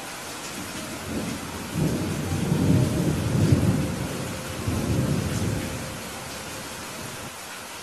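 Steady rain with a rolling rumble of thunder. The thunder builds about a second in, swells twice and dies away after about six seconds.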